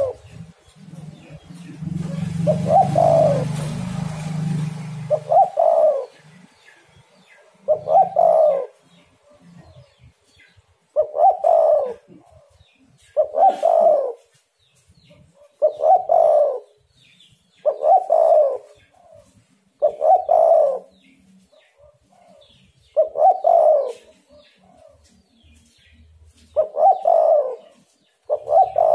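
A spotted dove (tekukur) singing its coo song, a short two- or three-note phrase repeated every two to three seconds. A low rumble with hiss lies under the calls for the first few seconds.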